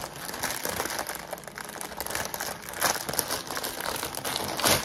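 White plastic poly mailer bag crinkling as it is handled and pulled open by hand, with two louder crackles, about three seconds in and near the end.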